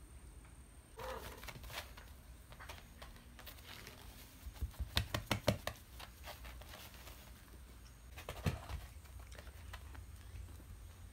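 Shiba inu and black cat moving about on tatami mats: scattered soft taps and clicks of paws and claws, with a quick run of knocks about halfway through and a single thump near the end.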